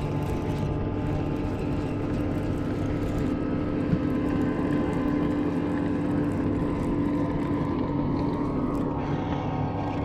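A boat motor running at a steady hum with an unchanging pitch, and a single small click about four seconds in.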